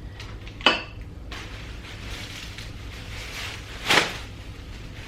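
Containers and packages being handled in a pantry: a sharp, ringing clink just under a second in, then a louder knock near the end.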